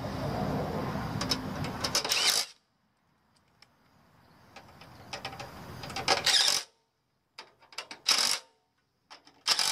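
Cordless impact driver with a long nut-setter bit tightening sheet-metal screws into a furnace heat exchanger. It makes two longer runs, each building up and ending in rapid hammering as the screw seats. Two short bursts follow near the end.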